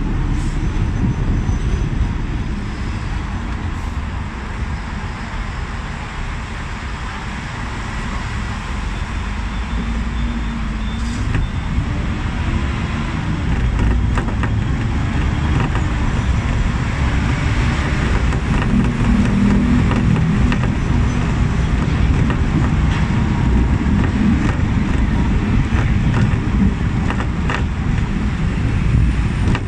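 Hong Kong double-decker tram running along its rails, heard from on board: a steady low rumble with a wavering hum, growing louder about halfway through as it gathers speed, with road traffic around it.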